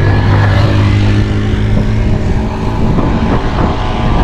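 Steady drone of a motor vehicle engine running close by, a low hum with overtones, over rushing road and wind noise.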